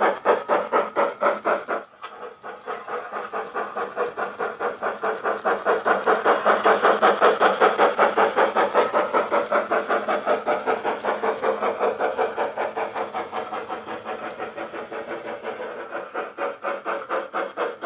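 Sound-decoder steam-locomotive chuffing from a Hornby Hogwarts Castle model, played through a small speaker in the tender: an even beat of about four chuffs a second. It dips briefly about two seconds in and is loudest as the engine passes close.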